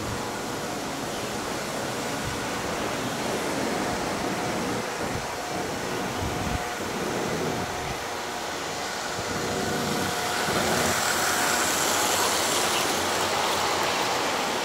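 Lionel O gauge model trains running on three-rail track: a steady running noise of wheels and motors, growing louder over the last few seconds as a passenger car passes close by.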